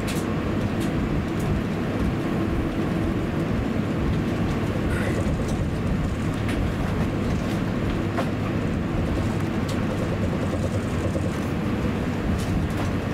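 Cabin noise inside an Airbus A350-900 taxiing: a steady low rumble of the idling engines and air conditioning, with a few faint light clicks.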